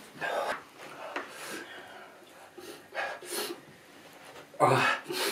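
A young man breathing hard in short gasps and huffs from the burn of a naga chilli vodka shot, then a loud pained cry about four and a half seconds in.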